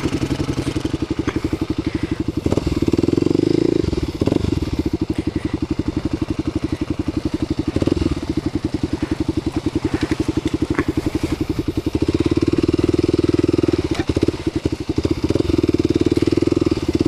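Kawasaki KLX250S single-cylinder four-stroke engine with an aftermarket Muzzy exhaust, running at low speed with an even pulse of exhaust beats. It gets louder as the throttle is opened about three seconds in, and again for most of the last five seconds.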